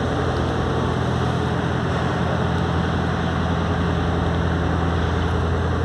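Steady low machine hum with no change in pitch or level.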